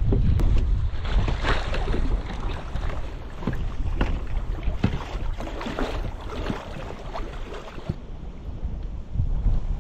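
Wind rumbling on a kayak-mounted camera's microphone, with scattered small splashes and clicks of water on the boat. The rumble is heaviest at first and eases off through the middle, then picks up again near the end.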